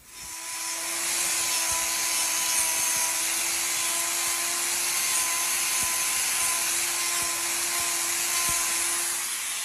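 Angle grinder with a hoof-trimming disc running against a cow's hoof, grinding away the sole horn to open access to rocks lodged under it. It makes a steady, high grinding hiss over a steady motor whine, building up over the first half second.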